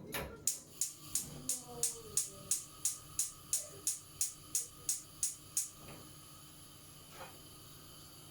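Gas stove burner igniter clicking rapidly, about three clicks a second, while the burner is being lit; the clicking stops about five and a half seconds in.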